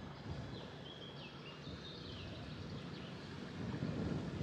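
Low, steady rumble of a motor yacht under way at slow speed, growing a little louder near the end. A small bird calls with a few short, high chirps in the first half.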